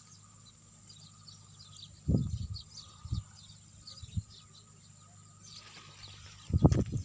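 Small birds chirping faintly and repeatedly outdoors, over a thin steady high whine. Low dull thumps come about two, three and four seconds in, and more of them crowd together near the end.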